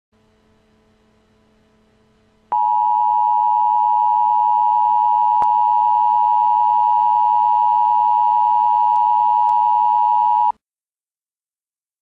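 Emergency Alert System attention signal: a loud, steady two-tone alarm of two close pitches sounded together. It starts suddenly about two and a half seconds in, holds unchanged for about eight seconds and cuts off abruptly.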